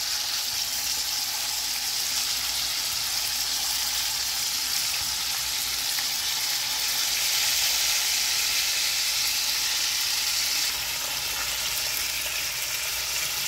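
Slices of steak sizzling steadily in hot fat in a frying pan, put back on the heat to cook on from medium toward medium well. The sizzle eases slightly about eleven seconds in.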